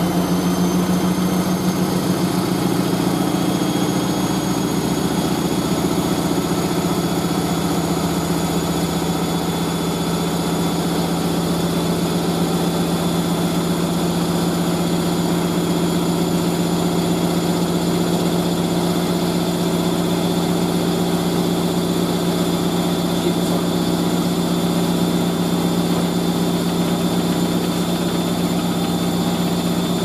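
Hoover A3060 front-loading washing machine's motor and drum spinning at a steady speed: a loud, even hum with a faint high whine that climbs over the first few seconds and then holds.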